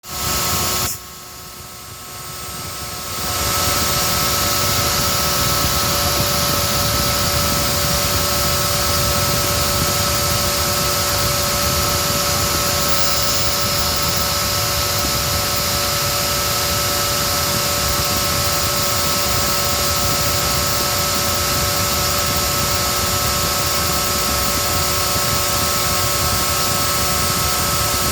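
CNC milling machine running while milling down a heatsink: a steady hiss with several steady whining tones over it. It drops away about a second in and builds back up by about four seconds.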